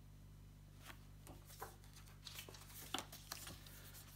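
Faint rustles and light taps of a paperback picture book being handled and turned around, a few short sounds scattered through the middle, over a low steady hum.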